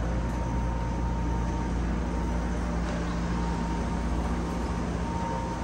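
Steady low mechanical hum with a faint high whine running through it, and no distinct events.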